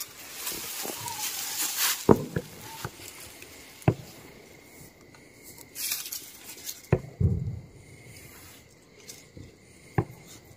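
Tall dry grass rustling and brushing against clothing as a person pushes through it, with a few sharp clicks or snaps of stalks spread through it.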